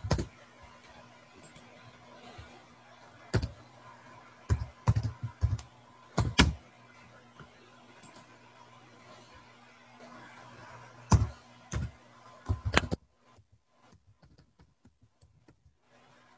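Computer keyboard keys clicking in irregular runs of keystrokes as text is typed, over a steady low electrical hum. The hum cuts off about thirteen seconds in, and the keystrokes after that are faint.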